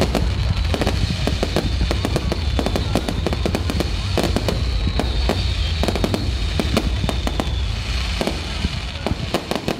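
Fireworks display: rapid, overlapping bangs and crackles over a continuous low rumble.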